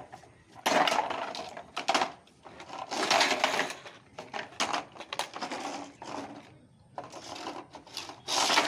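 Plastic toy cars whirring and clattering in irregular bursts as they are run and smashed into each other.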